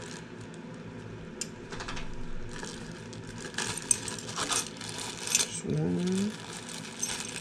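Small metal mounting plates and clamps clinking and tapping against a metal air box as they are handled: a run of scattered light clinks, the brightest a few seconds in.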